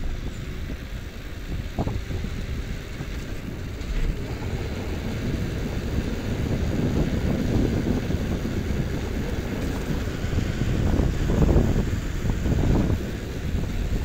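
Wind buffeting the microphone of a hand-held camera on a moving road bike: a low, gusty rumble that grows louder over the second half.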